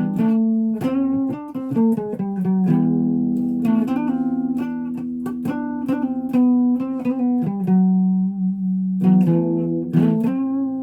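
Guitar played with a pick: a continuous run of plucked notes and chords, with some notes left to ring.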